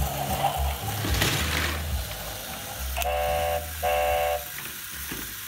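GeoTrax toy train's electronic horn sounding twice, two short pitched toots about half a second each, over a low hum.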